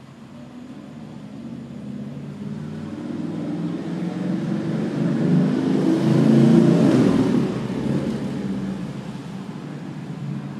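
A motor vehicle passing by, growing louder to its peak about six to seven seconds in and then fading away.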